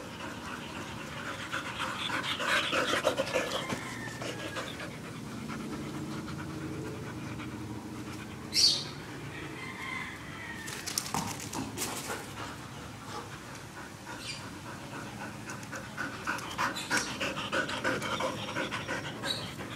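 Labrador-type dogs panting close up in quick, rhythmic breaths. One short, sharp high-pitched sound stands out as the loudest moment about halfway through.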